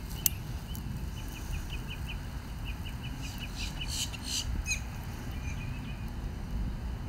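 Birds chirping in quick series of short calls, busiest about three to four and a half seconds in, over a steady low rumble. A single sharp click sounds just after the start.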